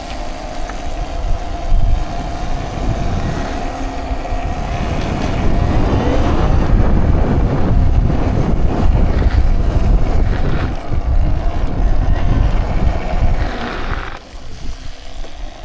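Wind buffeting the microphone and road noise while riding a Talaria electric dirt bike, over a steady whine from its electric motor. The rush builds through the middle and eases off near the end as the bike slows.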